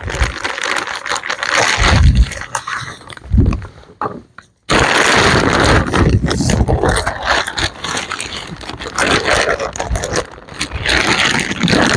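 Strong wind buffeting the microphone in irregular gusts, mixed with the scraping and rustling of potting soil being scooped and poured into a plastic container.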